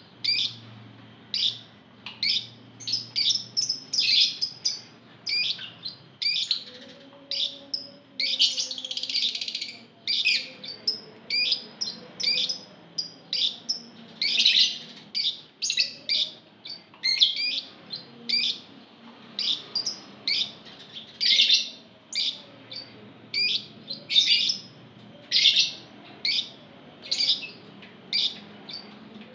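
A flock of Fischer's lovebirds calling: a continuous run of short, shrill chirps, about two a second, with denser chattering stretches about eight to ten seconds in and again around fourteen seconds.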